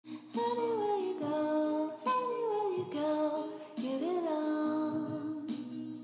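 Background music: a sung melody over steady held accompaniment notes, in short phrases of about a second, several gliding down in pitch.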